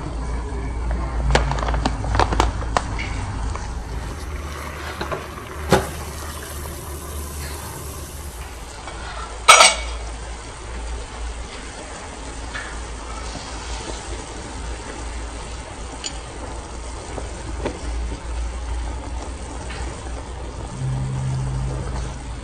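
Plastic instant-noodle packet crinkling and being handled, with a few sharp clicks and knocks and one loud crackle about ten seconds in. The rest is noodles simmering in a pot of boiling water over a steady low hum.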